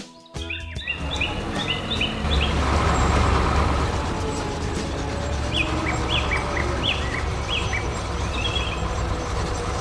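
Heavy diesel machinery running with a steady low rumble, while small birds chirp in short repeated series, once near the start and again past the middle.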